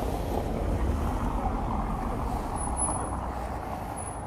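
A car driving past close by, its engine and tyre noise a steady rumble that slowly fades toward the end.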